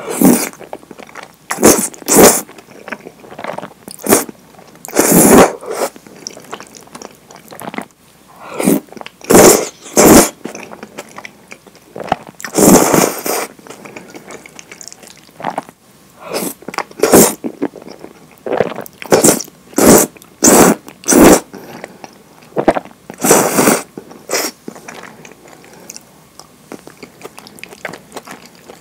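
Close-miked eating of thick curry udon: noodles slurped up in several pulls of about a second, with wet chewing and mouth sounds in short, sharp bursts between them.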